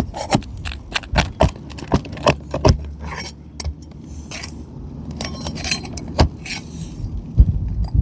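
A metal prying tool clicking and scraping against asphalt shingles as their seal strips are broken loose, a quick run of sharp ticks in the first three seconds, then sparser scrapes and clicks.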